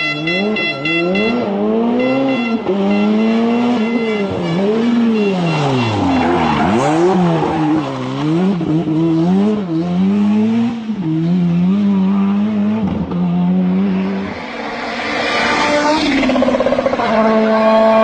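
Rally car engine revving hard, its pitch climbing and dropping about once a second, with bursts of tyre and gravel hiss in between. Near the end the engine holds at a steady pitch.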